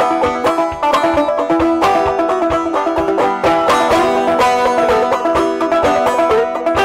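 Five-string banjo played clawhammer style in eEGBD tuning: a steady, unbroken run of quick plucked notes carrying an old-time tune.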